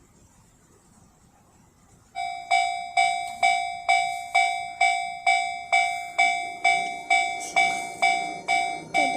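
Japanese railway level-crossing alarm starting up about two seconds in, ringing a steady, evenly paced 'kan-kan' a little more than twice a second.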